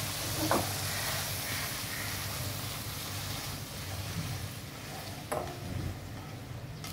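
Fried mutton mince still sizzling in hot oil in a nonstick frying pan with the flame off, the sizzle slowly dying down as a spatula scrapes it out into a steel bowl. There is a brief knock of spatula on pan about half a second in and another about five seconds in.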